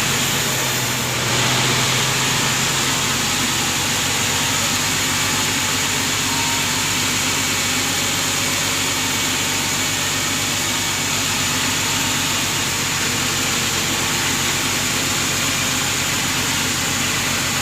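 Sawmill machinery running steadily: a low engine hum under a continuous high hiss.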